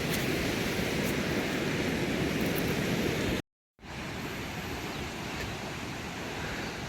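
Steady rushing outdoor noise. It drops to dead silence for a split second about three and a half seconds in, then carries on a little quieter.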